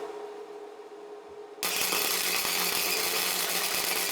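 Electric welding arc running steadily as a handle is welded onto a steel pipe, a constant hissing crackle with a low hum that starts suddenly about a second and a half in.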